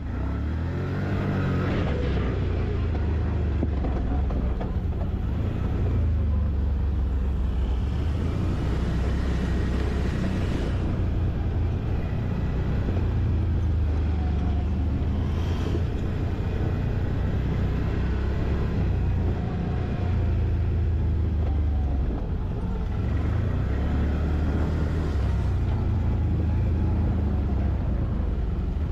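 Quad (ATV) engine running under way, a steady low drone whose pitch shifts with the throttle.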